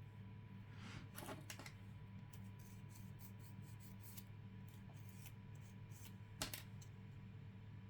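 Faint, scattered light clicks and taps of press-on nails and small nail pieces being handled, with one slightly louder click near the end, over a steady low electrical hum.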